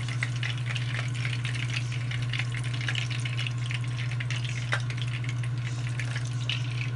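Lumpia (spring rolls) frying in hot oil in a pan, a continuous sizzle full of fine crackles, over a steady low hum.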